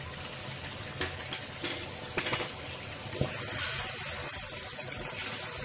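Chicken curry bubbling and sizzling in oil and tomato masala in a pan over medium heat. A few short clicks and scrapes from a wooden spatula stirring against the pan come in the middle.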